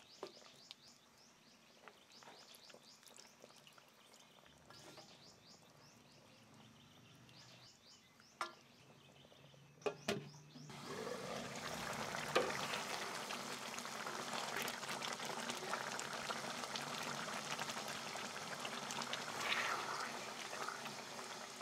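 A wooden spoon stirs pork in thick sauce in a stainless pan, faintly, with a few light taps. About ten seconds in, a glass lid clinks onto the pan. After that comes the steady bubbling and crackle of the braising sauce simmering, louder for the rest.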